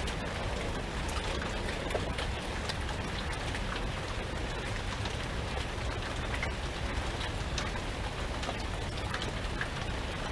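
Steady rain falling, with many individual drops ticking close by over a continuous hiss, and a steady low rumble of wind underneath.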